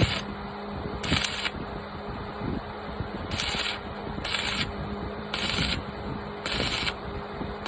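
Welding arc crackling in short bursts of about half a second each, roughly one a second, over a steady electrical hum.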